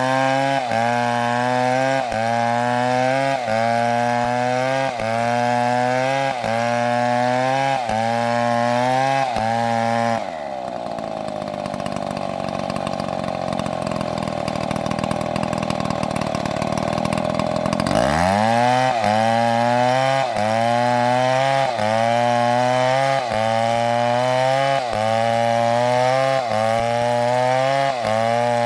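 Two-stroke chainsaw cutting through wood, its engine pitch rising and falling in a regular rhythm about every second and a half. About ten seconds in the engine note drops and holds lower for some eight seconds, then climbs back up and the rhythm resumes.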